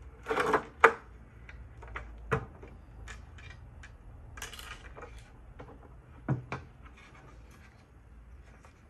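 Hard plastic parts of an electric grill plate being handled and taken apart: a few sharp knocks and clicks, the loudest about a second in, a scraping rub near the middle, and two more knocks later on.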